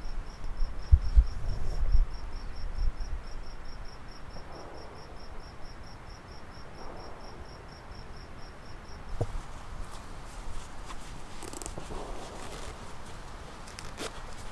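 Outdoor ambience dominated by a high, regular chirping, about four chirps a second, that stops about nine seconds in. Low wind rumble on the microphone in the first two seconds, and a faint sharp crack about nine seconds in.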